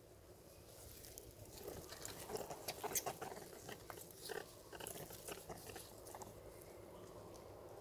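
Faint scattered clicks and rustles from long-tailed macaques moving and grooming on dry leaf litter, busiest between about two and five seconds in.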